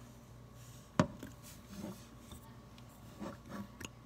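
A sharp knock about a second in, then scattered light clicks and rubbing: a dish soap bottle being handled and worked over a stainless steel sink to get the soap out.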